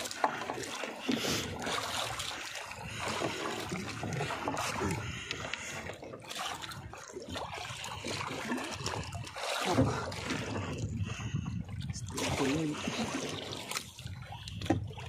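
Sea water sloshing and splashing against the side of a small outrigger boat, with a marlin held alongside the hull; a few sharp knocks are heard.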